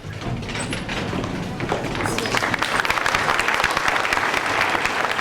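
Audience applauding, the clapping swelling about two seconds in and then holding steady.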